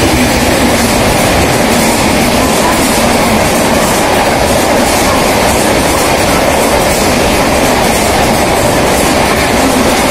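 Indian Railways passenger train's coaches running past along the rails: a loud, steady rumble with the wheels clattering over rail joints.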